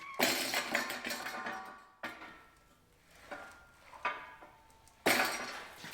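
Metal clanking: about five sharp knocks of steel parts, each ringing briefly and fading away.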